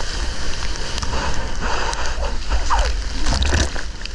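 Sea water splashing and sloshing close to the microphone in the surf, over a steady low rumble.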